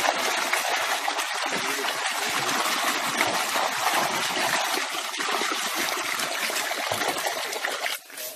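Water poured from several plastic jerry cans splashing into a small concrete water hole that already holds water, a steady loud rush that stops suddenly near the end.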